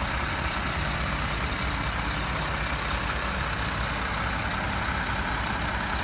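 Heavy-duty tow truck's diesel engine running steadily at low revs.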